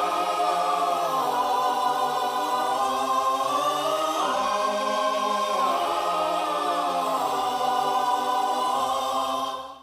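Music of sustained choir-like voices holding chords that change slowly, fading out abruptly near the end.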